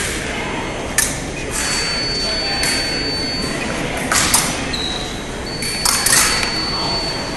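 Épée blades clashing, several sharp metallic strikes with a short ring, over the steady din of a large gym hall.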